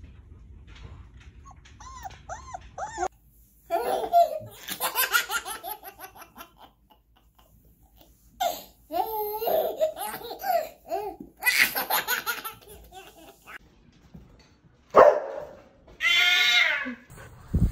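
A baby laughing hard in repeated fits of giggles and belly laughs, with pauses between the fits.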